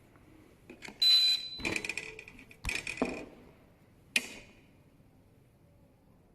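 A few sharp metallic clanks and rattles with a ringing tail, the loudest about a second in, where a short high beep sounds along with it.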